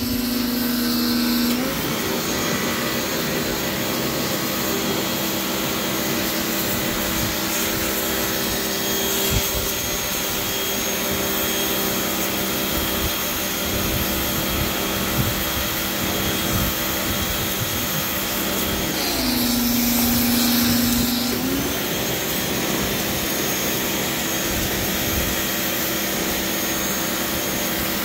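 Pressure washer running steadily, its high-pressure jet spraying the wooden deck boards with a constant hiss over the pump's hum. The machine's note changes briefly at the start and again for a couple of seconds about two-thirds of the way through.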